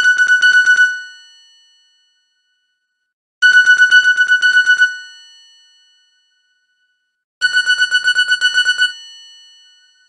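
Nokia 7610 ringtone played back as MIDI: a single high note repeated rapidly, about eight times a second, in ring-like bursts of about a second and a half, three bursts four seconds apart, each fading after it stops.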